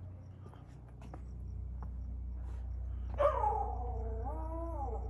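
A street dog whining: one drawn-out call of nearly two seconds, starting about three seconds in, that slides down in pitch, rises briefly and then falls away.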